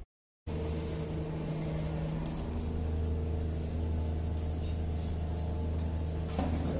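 A steady low mechanical hum with several constant tones, cutting in after about half a second of silence.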